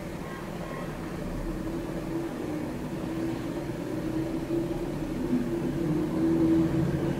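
A low, steady mechanical hum that slowly gets louder.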